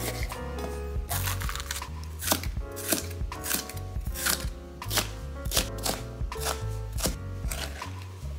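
Kitchen knife chopping bell pepper on a cutting board: a steady run of sharp cuts, about two to three a second, from about a second in. Background music plays underneath.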